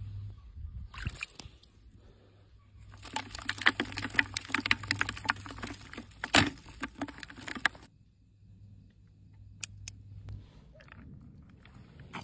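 Wet sloshing and squelching of a tangle of eels writhing in a plastic bucket, a dense crackle of small slippery knocks with one louder knock about six seconds in.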